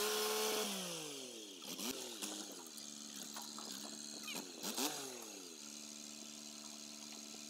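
Massey Ferguson 231S tractor's diesel engine under load while pushing brush with the box blade. It revs high at first and falls back, swoops up and down twice more, then settles to a steady run for the last couple of seconds.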